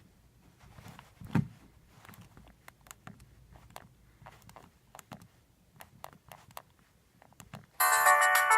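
Scattered faint clicks and taps with one louder knock, then near the end a polyphonic ringtone from a Sony Ericsson K700i mobile phone starts playing loudly through the phone's speaker.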